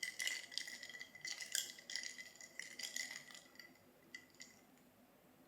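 Small hard household items, such as glass or plastic containers, clattering and clinking together as they are handled, with a thin high ringing under the clatter. The rattling comes in quick clusters and dies away about four seconds in.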